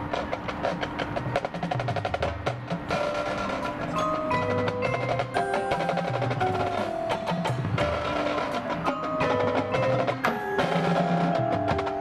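Marching band percussion playing: rapid drum and stick hits with front-ensemble mallet keyboards (marimba, glockenspiel) playing short ringing notes over a moving line of low bass notes.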